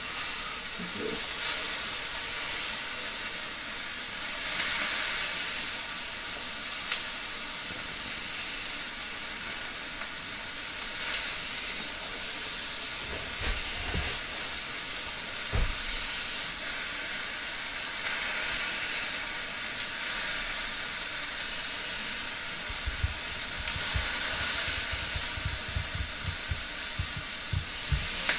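Venison frying in a hot pan on a gas stove, with a steady sizzle throughout. A few soft low thumps come in the middle, and a cluster of low bumps follows near the end.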